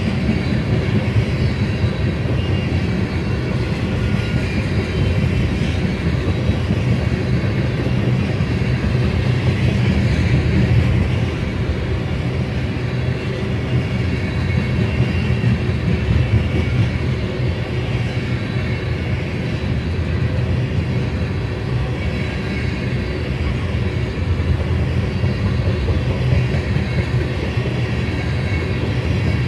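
Black tank cars of a CSX freight train rolling past, a steady rumble of steel wheels on the rails.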